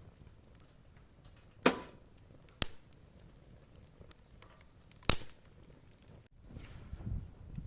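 Wood fire burning with three sharp pops from the firewood, the loudest about one and a half seconds in, over a quiet low background; soft low thuds come in near the end.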